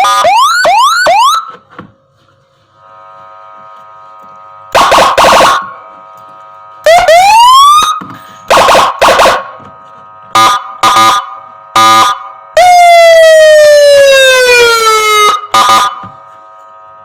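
Senken CJB electronic siren module sounding through a TOA ZH610S horn speaker, stepping through its tones. It starts with quick rising whoops, then after a short pause gives short blasts, a single rising whoop and several short blips, and near the end a falling wail about three seconds long. A faint steady hum sits between the tones.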